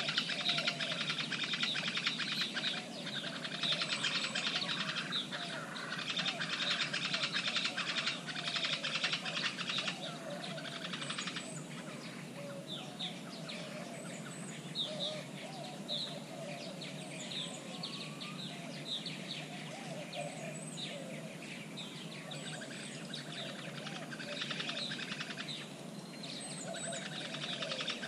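Chorus of many birds chirping and calling at once, with many overlapping notes. It is busiest in the first ten seconds or so, then thins out.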